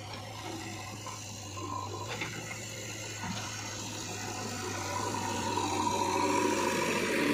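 JCB 3DX backhoe loader at work: a steady low engine hum under a rushing noise that grows louder about five seconds in.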